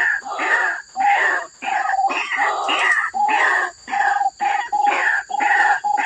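White-breasted waterhen calling: a long, unbroken series of repeated 'ruak-ruak' notes, about two a second.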